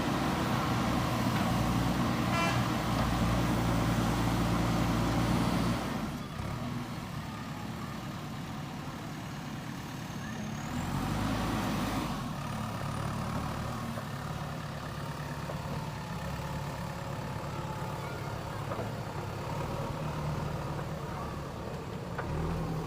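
Heavy diesel engine of earthmoving machinery running, louder for the first six seconds, then dropping sharply and picking up again about halfway through.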